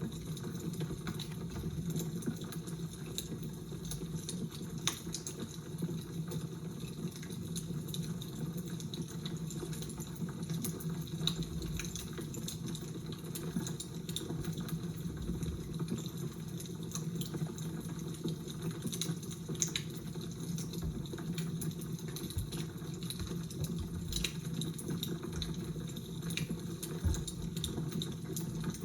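Fire crackling: irregular small pops and snaps scattered over a steady low rush.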